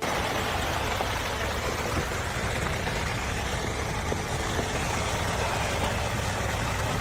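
An engine running steadily under a dense, even noise, starting abruptly and cutting off suddenly near the end.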